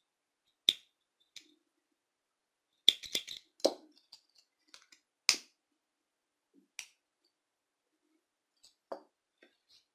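A handful of sharp, separate clicks and small taps from hands handling the needle-lace work and its small tools, with a duller tap near the end.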